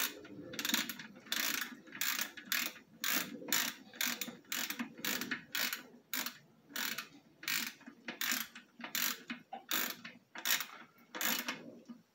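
Ratchet wrench clicking in quick repeated strokes, about three a second, stopping just before the end: tightening the oil drain plug back into a 40 hp Mercury four-stroke outboard after draining the oil.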